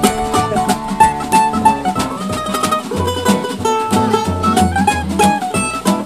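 Live acoustic string band playing an instrumental break: plucked acoustic guitar and a plucked lead over upright bass.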